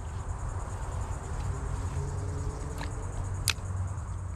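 An insect trilling steadily at a high pitch, over a low rumble, with a sharp click about three and a half seconds in.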